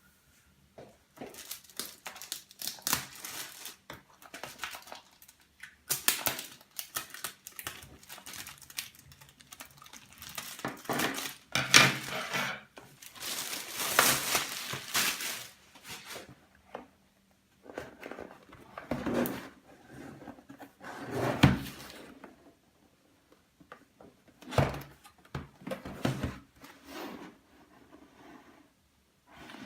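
Packaging of a boxed model car being opened and handled by hand: irregular rustling and crinkling of cardboard and plastic, with occasional knocks, loudest a little before the middle and again about two-thirds of the way through.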